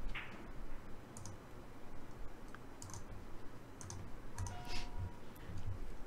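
Faint, scattered clicks of a computer keyboard and mouse, with a short two-note electronic tone stepping down about four and a half seconds in.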